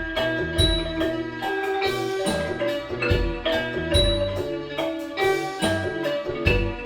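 Background music: a quick melody of short struck notes over sustained tones and a steady low beat.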